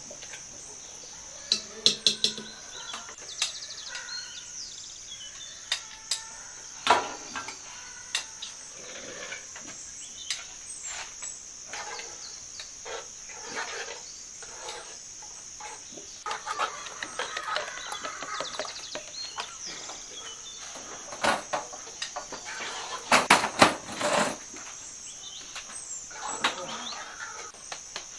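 Crickets chirring steadily and high, with scattered clinks and knocks of spoons on metal basins and pots, heaviest in a quick cluster near the end. Chickens cluck at times.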